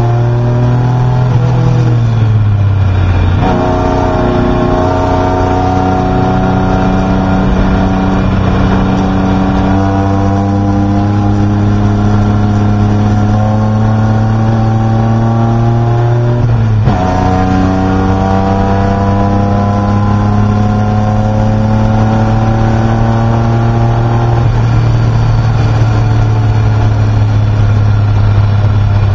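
Race car engine heard from inside the cockpit, pulling hard with the pitch climbing slowly through long stretches. The engine note drops suddenly about three seconds in and again about seventeen seconds in, then climbs again each time, before holding steady near the end.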